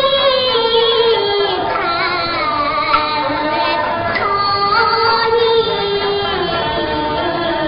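Huaiju opera singing: a solo voice sings a drawn-out melodic line, holding long notes and sliding between them, over a steady instrumental accompaniment.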